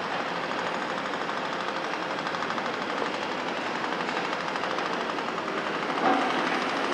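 Volvo EC300 excavator working, its diesel engine running under load with a fast, even clatter as it swings its boom and bucket. There is a louder knock about six seconds in.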